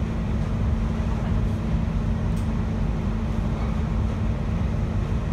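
Cabin noise inside a JR Hokkaido 721 series electric multiple unit under way: a steady low rumble of wheels on rail with a constant low hum.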